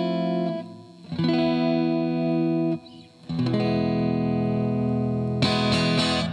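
Squier Affinity Series Telecaster electric guitar strumming chords, each left to ring for a couple of seconds, with new chords about a second in and after about three seconds, and a brighter strum near the end.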